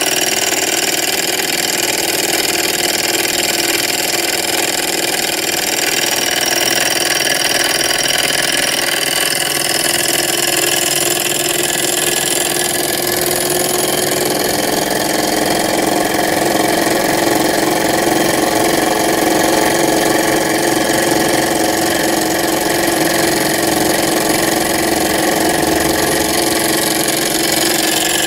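Small model alpha-type Stirling engine running fast and steady on an oxyhydrogen (HHO) torch flame, driving a tiny DC motor as a dynamo: a continuous mechanical whir with a steady whine.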